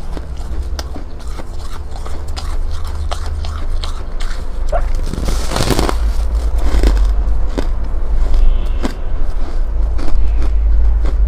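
Ice being bitten and chewed, with scattered sharp crunches and cracks, a denser run of crunching about five to six seconds in, and a deep low rumble throughout.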